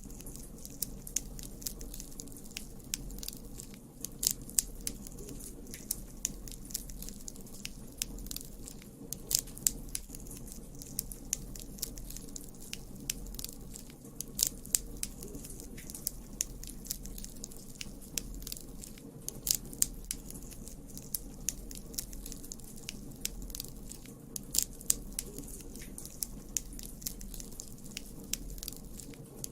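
Campfire burning: wood crackling with frequent sharp, irregular pops, a few of them louder, over a low steady rush.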